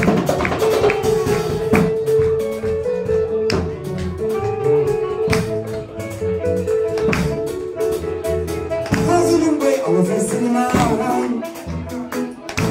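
A live band of saxophone, electric guitar, bass guitar and drum kit plays, with a long held note over the first few seconds and steady drum hits.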